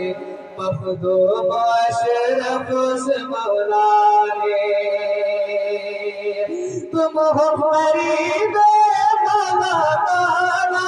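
A man singing a manqabat, an Urdu devotional poem in praise of a Sufi saint, in long held notes with wavering ornaments.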